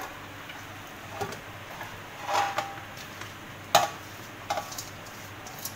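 Chopped wet spinach pushed by hand from a steel plate into a metal cooking pot, with a few light clinks and knocks of metal on metal, the sharpest just before four seconds in.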